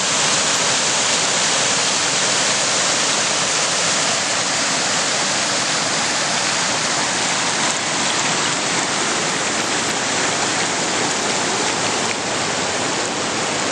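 Creek water rushing over a small rock-ledge waterfall and through a shallow rocky riffle: a steady, even rush.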